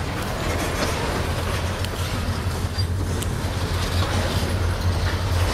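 Freight train passing at close range: a steady low rumble under broad rolling noise from the hopper wagons, with a few faint sharp clacks of wheels over the rail joints.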